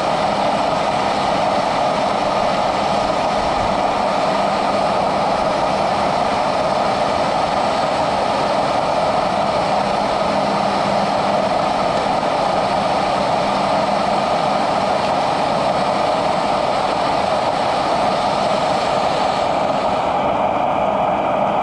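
A steady mechanical drone with a hissing rush over it; the highest hiss drops away near the end.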